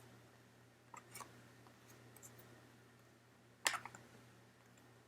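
Faint clicks and one short, louder crinkle from handling a pack of basketball trading cards and its wrapper, over a low steady hum.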